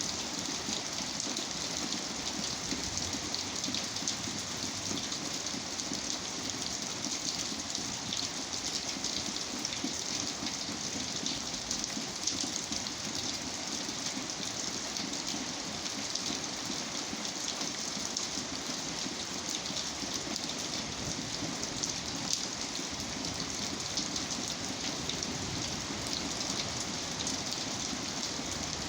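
Steady rain falling, an even hiss of many fine drops that neither builds nor fades.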